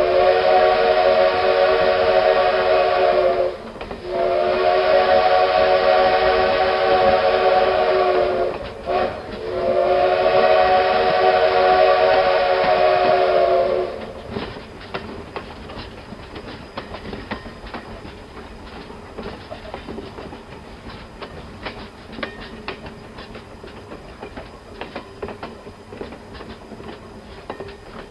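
Train whistle blowing three long blasts, each a chord of several steady tones. After that, rail wheels clicking and clacking over track joints with a low rumble.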